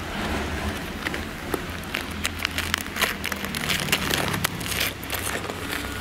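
Ceramic wool insulation being handled and pressed onto a brick oven dome: irregular crackling and clicks over a low steady rumble.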